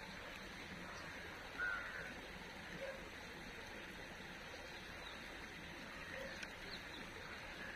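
A few short bird calls over a steady faint outdoor background hiss, the loudest call about one and a half seconds in.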